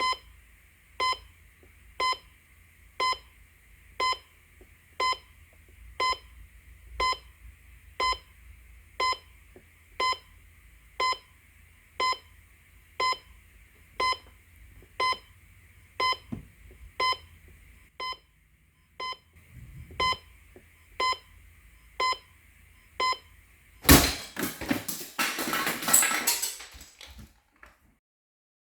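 Digital alarm clock beeping, one short electronic beep a second, for about 23 seconds. After the beeping stops, a loud crash is followed by a few seconds of clattering.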